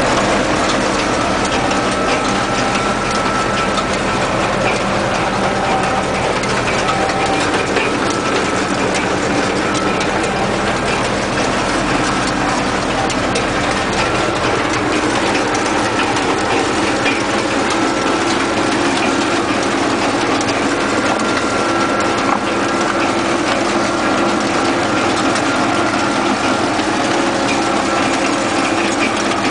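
Tractor diesel engine running steadily under load, heard from the driver's seat beside the vertical exhaust, while it pulls a forage wagon picking up cut grass, with the wagon's machinery clattering behind.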